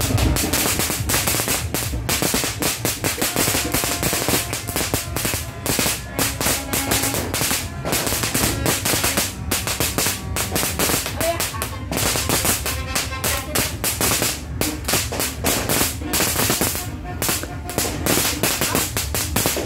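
Firecrackers going off in a long, rapid string of sharp pops and crackles that keeps going without a break.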